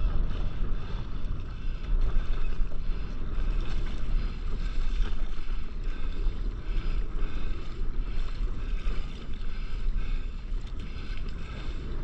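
Wind buffeting the microphone, with seawater sloshing around a surfboard floating on the swell.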